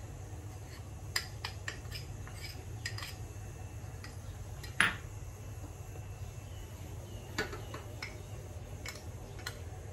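A spoon clinking and tapping against a small bowl and the stainless steel mixer-grinder jar as gram flour is scraped in: sparse light clicks, with one louder clink about five seconds in.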